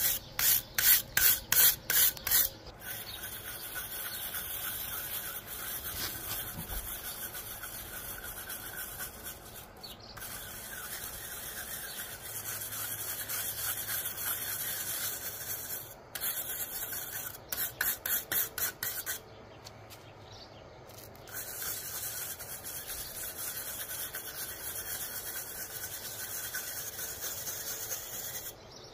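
A stiff hand brush scrubbing moss off a rough pebbly render wall, in quick back-and-forth strokes. Fast, loud strokes come at the start and again a little past halfway, with steadier scratching between and a short pause about two-thirds through.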